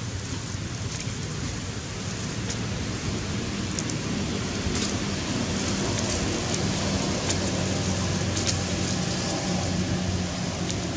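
Steady outdoor background noise: an even hiss with a low hum beneath it and a few faint clicks.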